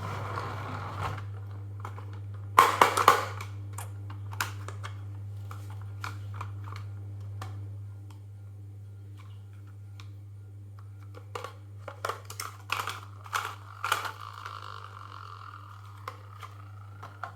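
Small toys rolling and clattering down a marble-run track: scattered sharp clicks, a loud cluster of clacks about three seconds in and another near the end, then a steady rolling whir for a few seconds. A steady low hum lies under it all.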